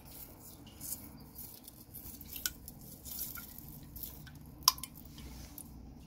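Small wet grains of crushed metallurgical slag shifting and clicking against each other in a wet hand, with light drips. A few sharp clicks, the loudest about two-thirds of the way through.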